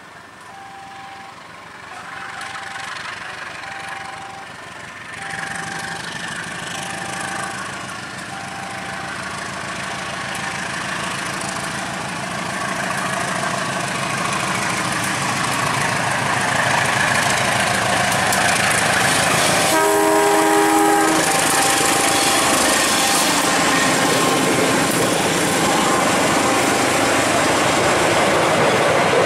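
Diesel-hauled passenger train approaching and passing, its engine and wheel noise growing steadily louder. A level-crossing warning signal beeps in short repeated tones over the first ten seconds or so. About two-thirds of the way through, the locomotive sounds one short horn blast.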